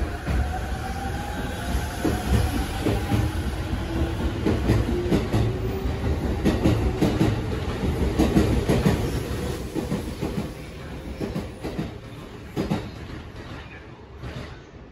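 JR Musashino Line electric commuter train pulling out of the platform. Its traction motors whine upward in pitch as it accelerates, then its wheels clack rapidly over the rail joints. The sound fades as the last cars leave, near the end.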